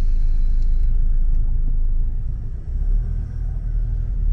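Steady low road rumble of a moving car, engine and tyre noise heard from inside the cabin.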